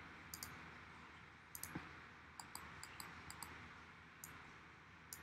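Faint computer mouse clicks, about a dozen, scattered irregularly over a low room hiss.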